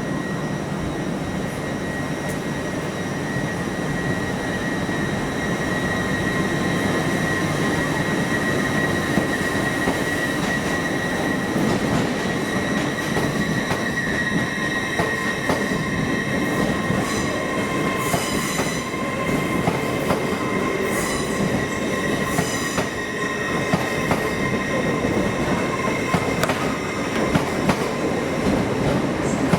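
Passenger train moving slowly along the platform with a steady, high-pitched wheel squeal from the wheels on the curved track, over a low rumble. Occasional clicks as the wheels cross rail joints, more of them in the second half.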